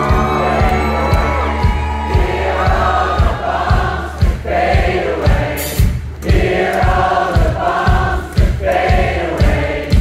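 A live rock band plays a steady beat of about two drum hits a second while a large crowd sings a repeated chorus phrase along with the band, starting about two seconds in.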